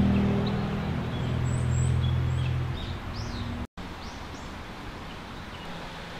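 Small birds chirping in the surrounding woods over outdoor ambience, while low sustained background music tones fade out over the first half; a sudden brief dropout just past halfway, after which only the birds and ambience remain.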